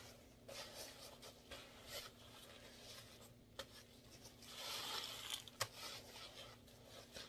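Soapy sponge loaded with laundry-detergent paste squeezed and worked in gloved hands over a tub of suds: soft wet squeezing sounds in noisy stretches, loudest about five seconds in, with a sharp click just after.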